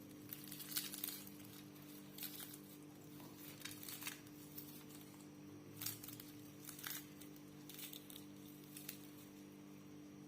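Crispy fried chicken coating crunching and crackling as a freshly fried piece is broken open, in a dozen or so irregular crunches. A faint steady hum runs underneath.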